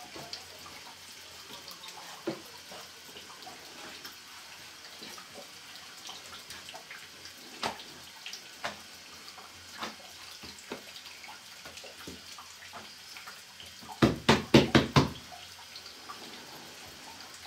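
Hands working a large thin sheet of yufka dough on a wooden board: scattered soft taps and pats, then a quick run of about seven sharp knocks within a second near the end.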